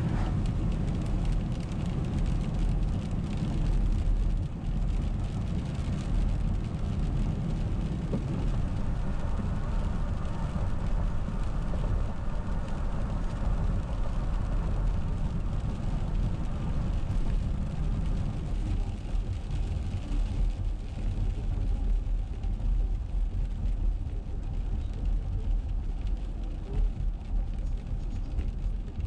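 Steady in-cabin road noise of a car driving on wet pavement: low engine and drivetrain hum with tyre hiss from the rain-soaked road.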